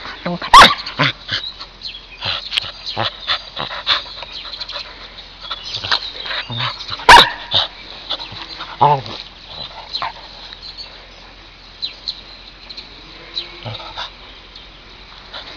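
Pumi puppy play-biting and tussling with a hand, making a few short yipping sounds among many small clicks and rustles of mouthing and handling. Two sharp knocks, the loudest sounds, come about half a second in and about seven seconds in.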